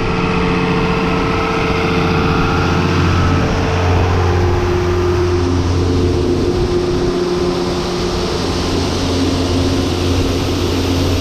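Diesel engine of harvest machinery running steadily under load, with a steady pitched hum. A rushing noise grows louder through the second half.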